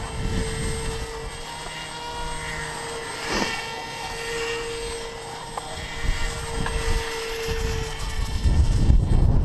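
RC airboat's brushless electric motor and propeller whining at a steady pitch. The whine fades about eight seconds in, as a louder low rushing rumble swells near the end.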